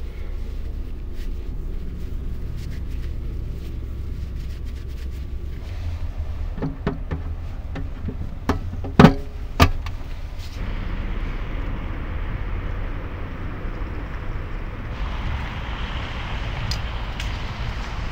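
A steady low rumble with scattered knocks and two loud, sharp thumps about nine seconds in. After that the background turns to a steady hiss that grows stronger a few seconds later.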